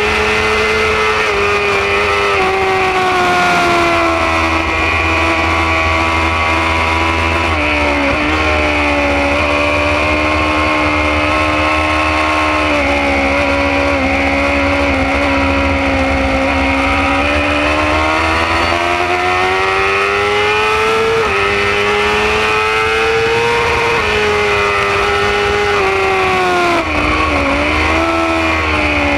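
BMW S1000RR's inline-four engine at high revs on a track lap. Its pitch climbs and falls with throttle and gear changes, with a sharp drop about eight seconds in and another past twenty seconds. Steady wind rush runs over the microphone.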